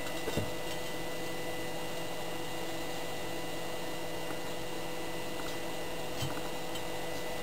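Steady electrical hum with a few fixed tones and a faint high whine, with a light click just after the start and another about six seconds in.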